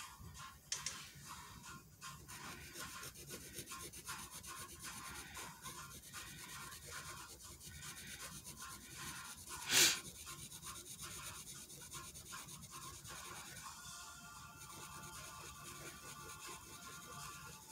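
Felt-tip marker rubbing and scratching on paper in quick, irregular strokes as it fills in solid black areas, with one short louder scrape about ten seconds in.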